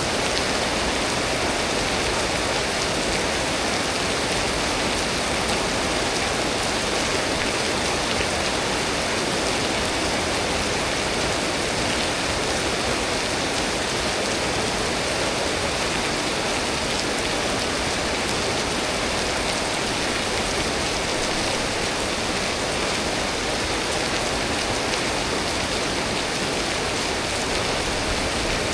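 Steady rain from a tropical storm falling without a break, an even hiss that holds at one level throughout.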